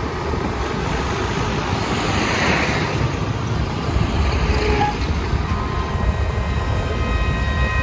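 A heavy truck driving along a road amid passing traffic, with wind rushing on the microphone and a steady low rumble; the noise swells briefly about two and a half seconds in.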